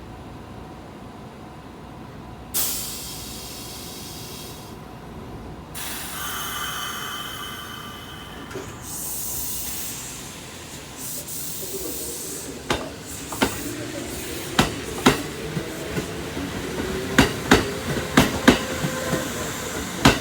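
Kintetsu 2800-series electric train pulling away: a sudden loud hiss of compressed air, then a second stretch of hiss. After that the train gathers speed, its motor whine rising in pitch and its wheels clacking over rail joints in pairs that come faster and faster.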